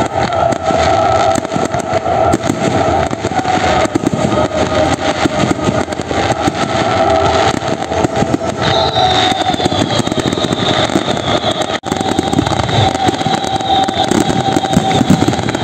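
Fireworks barrage: many shells bursting and crackling at once in a dense, continuous rattle, with a steady whistling tone running through it and a faint falling whistle from about eight seconds in.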